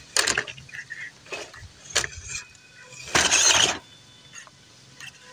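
1/12-scale MN99s Defender RC crawler clambering over a tree root: short, irregular scrabbling bursts from its tyres on bark, dirt and dry leaves, with a sharp click about two seconds in and the longest, loudest burst a little after three seconds.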